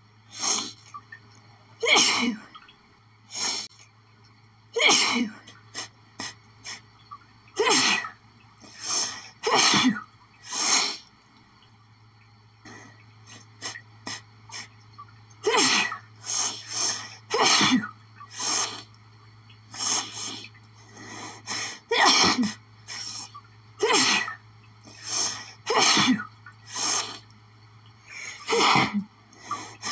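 A woman's sneezing fit: about two dozen sharp sneezes in quick runs, often less than a second apart, with a short lull partway through. She puts it down to an allergic reaction to lily pollen after sniffing the flowers.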